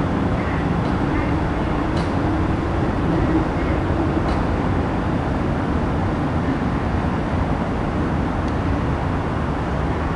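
Steady low rumble of an airplane passing in the distance, with a faint hum that drifts slightly in pitch.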